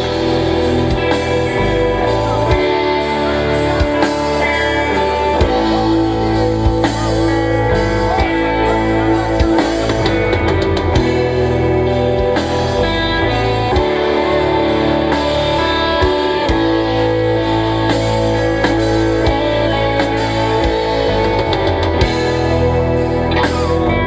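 Live rock band playing an instrumental passage with electric guitars and a drum kit.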